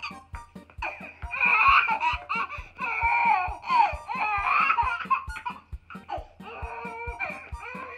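A baby laughing in high-pitched bursts, over background music with a steady beat.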